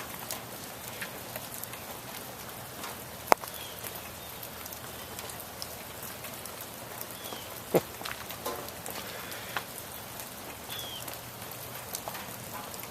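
Wet snow falling with a steady light patter, broken by a few sharp ticks.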